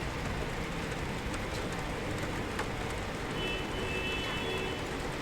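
Rain heard from indoors: a steady hiss with scattered sharp drop taps. A faint high tone sounds for about a second a little past the middle.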